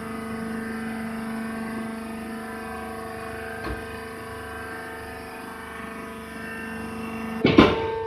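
Hydraulic wood shaving baler running with a steady, many-toned hum from its motor and pump. A faint click comes midway, and a loud metallic clank near the end, where part of the hum cuts out.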